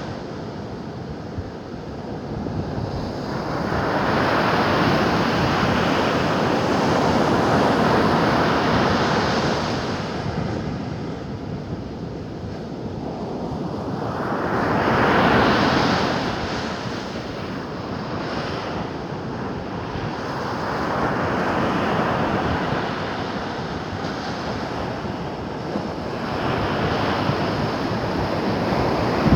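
Ocean surf: waves breaking and washing ashore, the rush swelling and easing every several seconds, with wind buffeting the microphone.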